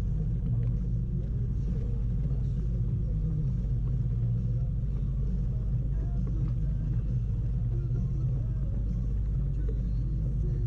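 Boat motor running steadily with a low, even rumble.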